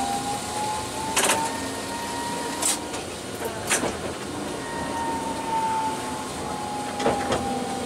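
Tokyu Setagaya Line 300-series tram running, its motor whine rising gently in pitch over the first few seconds and then falling again in the second half. A few sharp clacks from the wheels crossing rail joints break through it.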